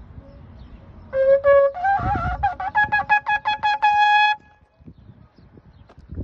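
A long twisted-horn shofar is blown. It starts about a second in with a short low note, jumps up in pitch into a run of quick pulsing notes, and ends on a held note that stops just after four seconds.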